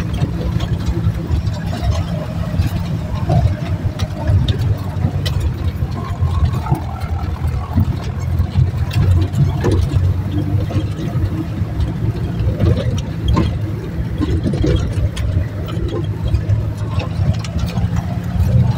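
Jeep engine running with a steady low rumble, heard from inside the cab, with frequent knocks and rattles as it bumps over a rough, rocky dirt track.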